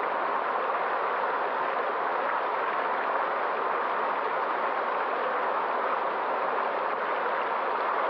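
A stream rushing over rocks: a steady, even hiss of running water.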